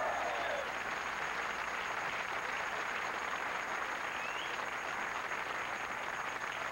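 Studio audience applauding steadily, with the last notes of band music dying away in the first moment.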